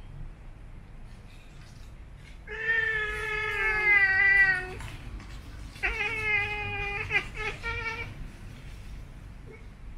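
Siamese cat yowling in a sing-song, growl-like voice: two long, wavering calls about a second apart, the second breaking into short pieces near its end.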